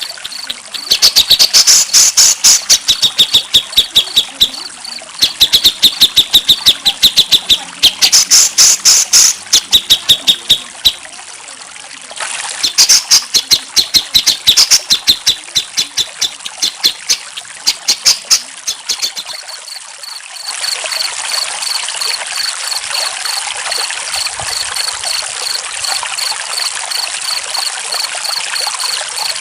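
Loud songbird song in rapid, clicky phrases for about the first 20 seconds. Then running water with a cricket chirping steadily over it.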